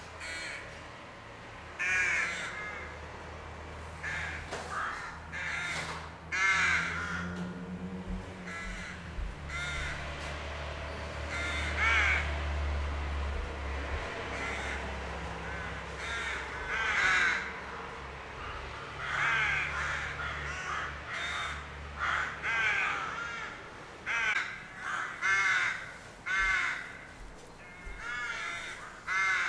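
Rooks at a rookery cawing: harsh caws from several birds, one every second or two, over a low steady rumble that fades out about two-thirds of the way through.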